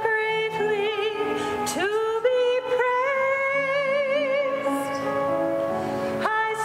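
A woman singing solo with vibrato, holding one long note through the middle of the phrase.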